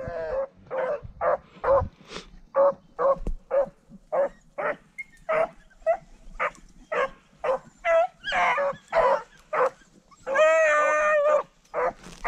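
Rabbit-hunting dogs barking in a steady run of short, pitched barks, about two or three a second, with one longer drawn-out bawl about ten seconds in.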